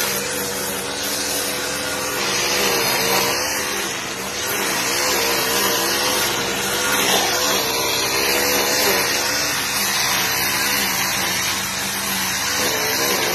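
Petrol brush cutter engine running steadily, its pitch wavering slightly up and down.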